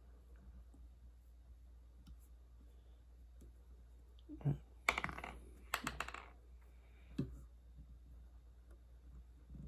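Fly-tying tools and a fur dubbing loop being handled at the vise: a few soft clicks and rustles, bunched in the second half, with a quiet stretch before them.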